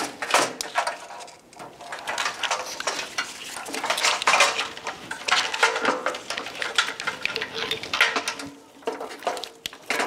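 Irregular clicking and clattering of plastic parts: a fog light and its wiring harness in corrugated plastic loom being handled and knocked against the bumper cover's plastic brackets while being brought into place.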